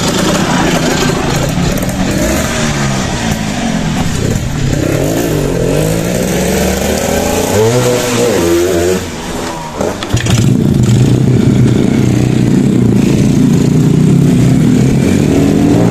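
Small motorcycle engines revving, their pitch rising and falling, for about the first ten seconds. After a short dip and a click, a Honda Supra underbone motorcycle's engine runs steadily as it is ridden.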